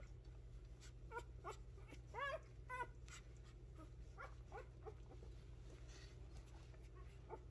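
Five-day-old poodle puppies giving faint, short high squeaks and whimpers, several rising in pitch, the loudest a little over two seconds in, over a low steady hum.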